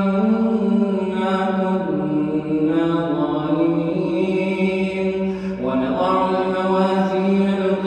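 A man's voice reciting the Quran in a melodic, chanted style, drawing out long held notes that step to a new pitch about two seconds in and again near the end.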